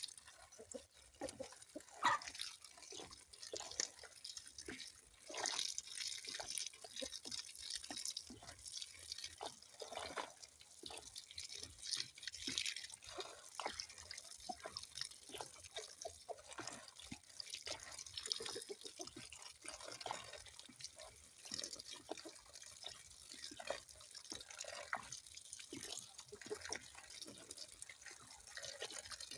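Water dripping: an irregular stream of drops and small splashes, with no steady rhythm.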